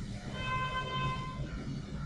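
A steady high-pitched tone with several overtones, lasting about a second, over a faint low hum.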